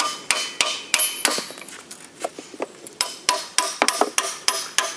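Hammer blows on a tool driven into the sealant-glued seam between a GM Ecotec 2.2 engine block and its crankshaft bearing carrier, to break the glue and loosen the carrier. A run of sharp metallic strikes with a brief ring, about three a second, thinning to a few lighter taps around the middle.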